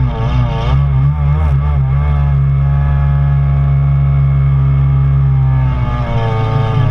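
Stand-up Kawasaki Jet Ski engine running hard under way. The revs waver quickly up and down in the first couple of seconds, hold steady, then dip and pick up again about six seconds in as the craft carves through turns.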